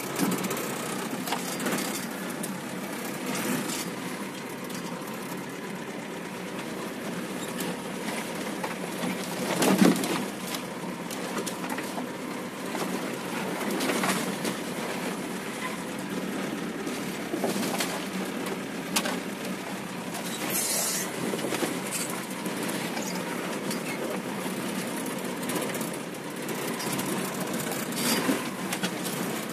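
Off-road 4x4 running slowly over a rough dirt track, heard from inside the cab: steady engine and body noise with occasional knocks and jolts, the loudest about ten seconds in.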